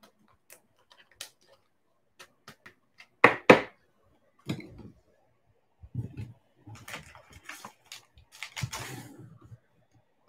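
A clear plastic card holder being handled and set up on a table: light clicks and taps, two sharp plastic clicks about three seconds in, then a few seconds of knocking and rustling as it is moved and stood upright.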